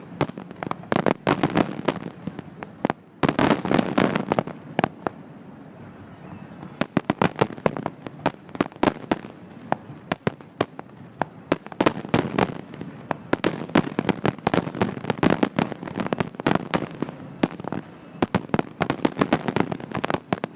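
Fireworks going off: a dense, rapid run of sharp cracks and pops, with a brief break about three seconds in and a sparser spell between about five and seven seconds.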